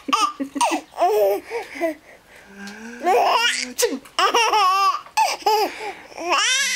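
Baby of almost six months laughing hard in about four high, wavering bursts of giggles.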